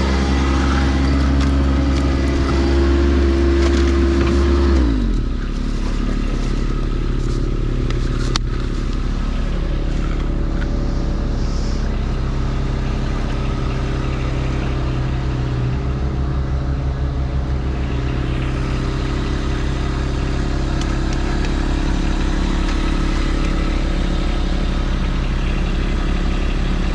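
Heavy equipment engine running at high speed, then throttling down about five seconds in and running steadily at a lower speed, with scraping and crackling of stone and dirt being moved.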